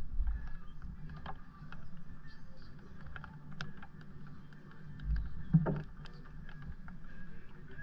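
Wind gusting over the microphone on an open fishing boat, with low rumbling buffets just after the start and again about five seconds in, over water moving against the boat's hull. Scattered light clicks and taps sound through it.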